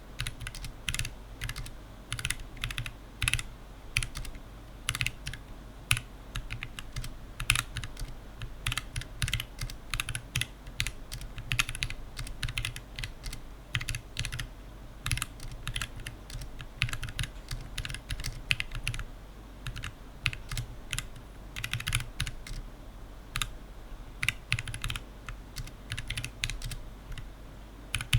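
Computer keyboard typed on quickly and continuously: a fast, uneven stream of key clicks, several a second, with some strokes louder than the rest.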